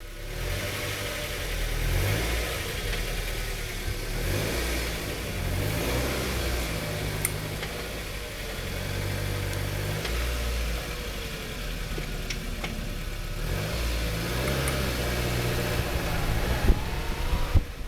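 2003 Mazda Miata's four-cylinder engine running, its speed stepping up and down, with a tick noise whose cause the owner can't find. A few sharp knocks near the end.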